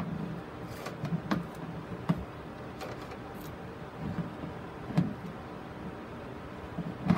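Black plastic grid mounting board and fishing line clicking and knocking irregularly as gloved hands wrap and tie the line around a sphagnum moss ball to mount a staghorn fern, with a louder knock near the end. A low steady hum runs underneath.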